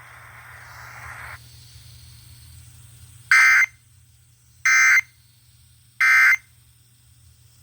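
NOAA Weather Radio Emergency Alert System end-of-message signal: three short two-tone digital data bursts (the SAME 'NNNN' code), about 1.3 s apart, after a second or so of faint radio hiss. It marks the end of the severe thunderstorm warning broadcast.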